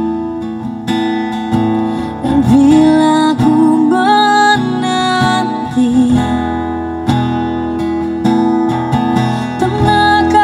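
A song with acoustic guitar and a singer, played back over a two-way car audio system with Scan-Speak Silver series speakers as a demonstration of its tuning.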